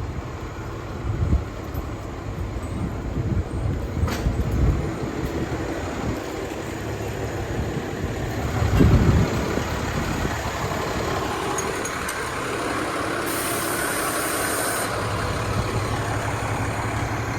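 Fire engine's diesel engine running at a low rumble, swelling louder about nine seconds in, with a hiss of air lasting over a second near the end.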